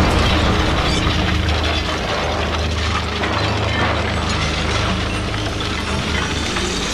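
Mechanical sound effects from an animated robot scene: dense, rapid clicking and whirring over a steady low rumble.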